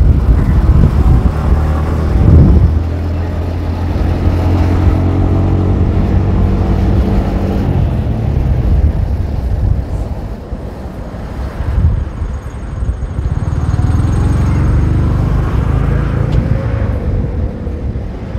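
Motorcycle engine running as the bike rides along, its pitch shifting with the throttle. It eases off about ten seconds in and picks up again with a rising note a few seconds later.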